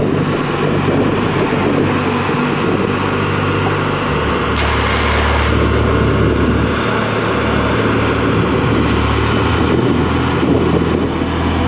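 Kato mobile crane's diesel engine running close by, its engine speed stepping up and down a couple of times.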